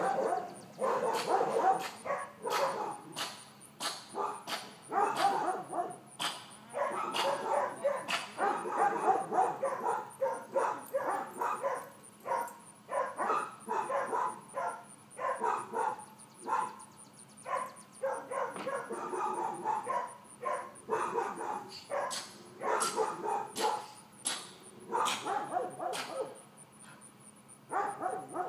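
Miniature dachshund puppy barking over and over in quick, short barks, with a few brief pauses, stopping near the end.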